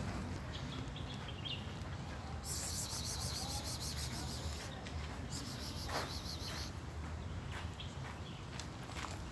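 Birds calling outdoors: a high, buzzing trill comes twice, about two seconds each, with a few short chirps, over a steady low rumble.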